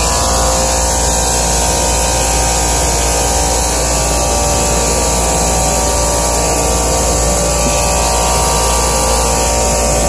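An old Engineered Air DX air-conditioning unit running: a loud, steady machine hum with a hiss over it, with no change in level.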